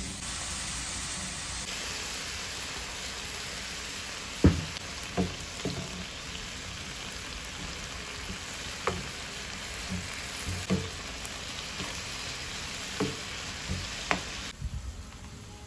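Food sizzling in a frying pan: a steady hiss with scattered sharp knocks and clicks over it. The sizzle cuts off suddenly about a second before the end.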